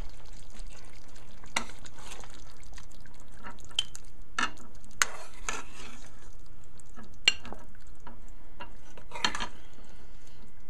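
Metal spoon scraping and knocking against a cooking pot as thick beef and potato curry is scooped out and dished into a bowl: half a dozen sharp clinks at uneven intervals.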